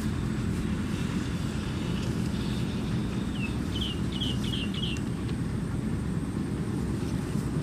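Steady low rumble of wind on the microphone in an open field. A small bird gives a quick series of about five high chirps midway through.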